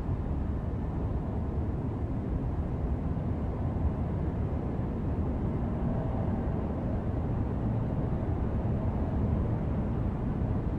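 Steady low engine rumble of a motor vehicle, running evenly without any change in pitch.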